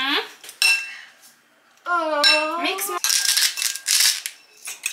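Metal cutlery clinking and scraping against a dish, densest from about three seconds in. A short wordless voice comes about two seconds in.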